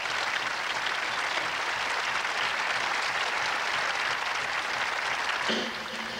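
Audience applauding, a steady dense clapping that fades as music begins near the end.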